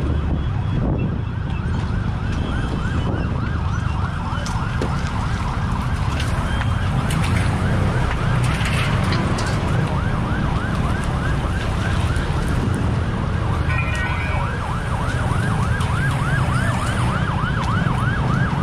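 Emergency vehicle siren in a fast yelp, its pitch sweeping up and down about three times a second over a constant low rumble. The yelp fades somewhat in the middle and comes back strongly near the end.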